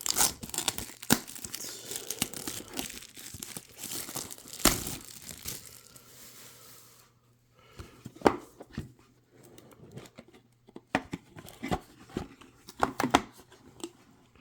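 Trading card box packaging being torn open and crinkled by hand: a dense spell of tearing and crinkling, a short pause, then scattered sharp crackles and taps.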